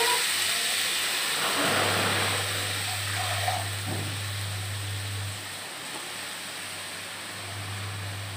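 Fresh chopped spinach sizzling in hot oil in a kadhai, a steady hiss that slowly dies down as the leaves heat through, over a low hum that drops out briefly twice.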